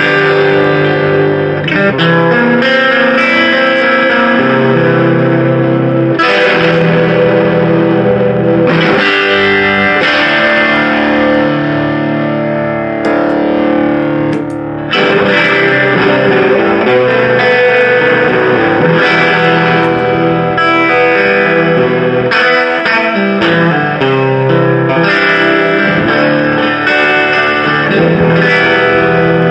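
1963 Hofner Galaxie electric guitar played through a 1968 Sound City Concord amplifier with an overdrive pedal and boost, strumming chords and riffs continuously. There is a short break in the playing about halfway through.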